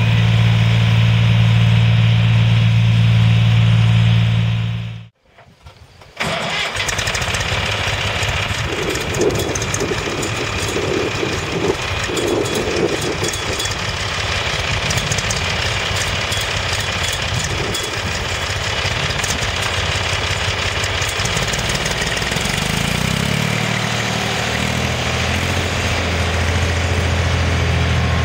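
Ursus C-360 3P tractor's three-cylinder diesel engine running steadily under load while mowing, with a deep, even drone. The sound drops out briefly about five seconds in. It then comes back rougher and more clattery, and the deep drone returns near the end.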